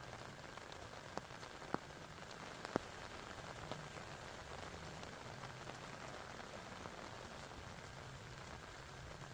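Steady rain falling, with three sharp taps of drops in the first few seconds.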